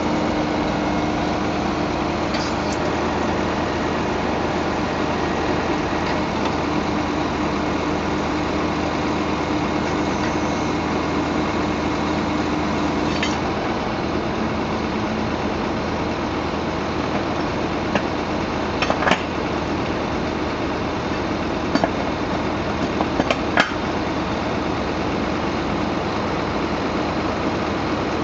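Volvo FM 330 truck's diesel engine running steadily at idle, powering the hydraulics of a skip-loader whose arms are being lowered over a skip container. The engine's note changes about halfway through. Several sharp clanks come in the second half.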